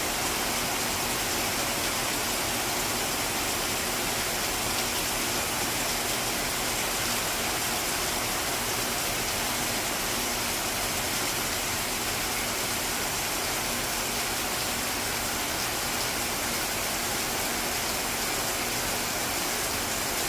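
Steady rainfall: a dense, even hiss with no breaks or individual drops standing out.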